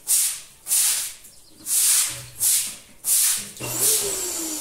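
Broom sweeping a cement floor: about six quick, evenly spaced scraping strokes. Near the end a steady hiss takes over.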